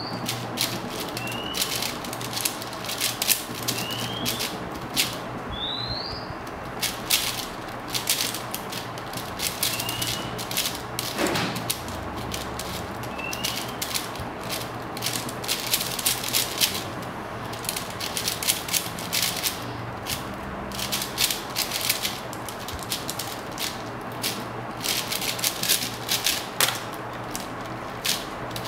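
4x4 speedcube being turned fast in the hands: quick runs of plastic clicking and clacking with short pauses between them as the puzzle is solved.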